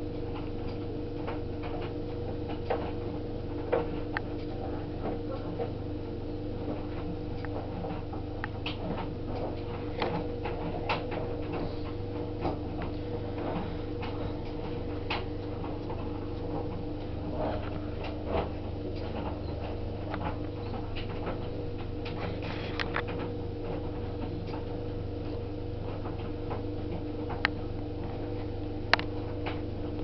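White Knight/Bosch vented tumble dryer running: a steady motor and fan hum, with irregular light clicks and knocks from the load tumbling in the turning drum, a few of them sharper.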